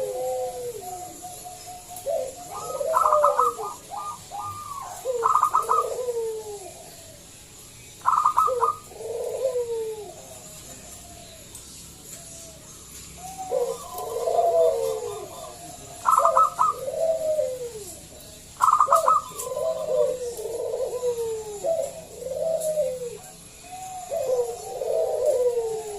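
Zebra dove (perkutut) singing: repeated cooing phrases, each opening with a quick run of stuttered notes and falling into lower coos, with short pauses between phrases.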